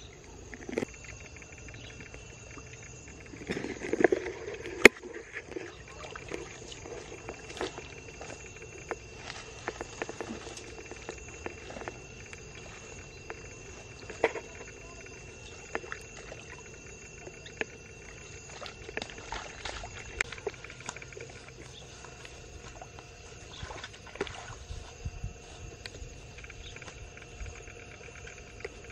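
Rustling and scattered light knocks of a person moving through grass and handling a bamboo fish trap, with a louder rustle and a sharp click about four seconds in, over a steady high tone.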